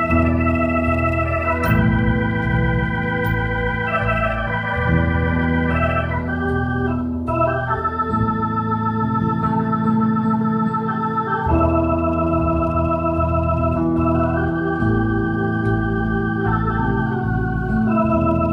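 Keyboard playing in an organ voice: sustained chords that change every two to four seconds over a low bass.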